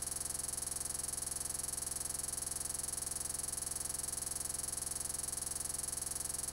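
Steady, unchanging electronic buzz and hiss with a high whine and a fast, even flutter: the sound of a corrupted, frozen recording rather than of anything in the room.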